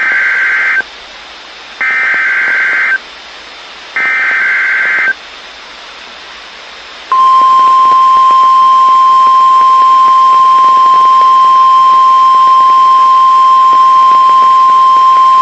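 NOAA Weather Radio alert tones: three short, harsh bursts of SAME digital header data, each about a second long and two seconds apart. About seven seconds in, the steady single-pitch 1050 Hz warning alarm tone starts and holds.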